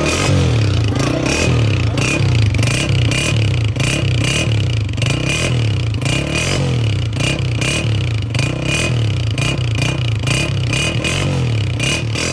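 Honda CG125's single-cylinder four-stroke engine running, its exhaust note rising and falling again and again as the throttle is blipped. Short clattering clicks recur throughout.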